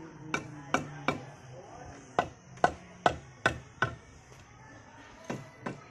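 Mallet tapping a lightweight AAC (Hebel) block to bed it into the wall: a run of sharp knocks, three in quick succession, then five more after a short pause, and two more near the end.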